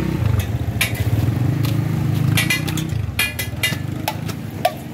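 A metal spatula clinks and scrapes on a large flat griddle in a series of sharp, ringing taps, over a steady low mechanical rumble.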